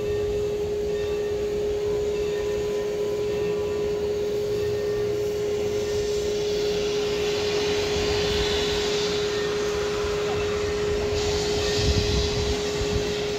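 Santa Fe 2926 steam locomotive hissing steam, with a single steady tone sounding throughout. The hiss swells louder about six seconds in and again about eleven seconds in.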